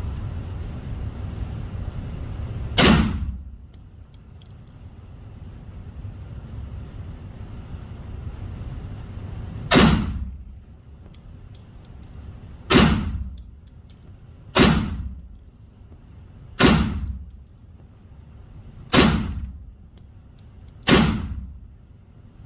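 Seven slow, deliberate gunshots from a firearm chambered in 5.7x28mm, spaced unevenly about two to seven seconds apart, each a sharp crack with a short ringing tail. A low steady rumble runs underneath.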